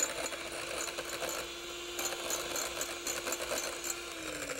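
Hand-held electric mixer running steadily, its beaters whipping egg yolks in a glass bowl with a fast clicking rattle. This is the preliminary beating that thickens the yolks for mayonnaise. About four seconds in it is switched off, and the motor's hum falls in pitch as it winds down.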